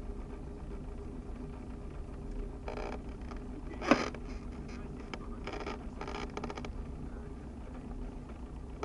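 Cessna 172SP's four-cylinder Lycoming engine idling as the plane taxis, a steady low hum heard inside the cabin. Short bursts of noise come around three and six seconds in, and a single sharp knock about four seconds in.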